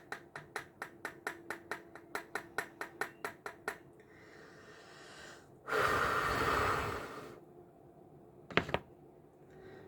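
Makeup powder being worked with a brush: a quick run of light taps, about four a second, lasting nearly four seconds, then a breathy puff of air about a second and a half long, and a sharp double click near the end.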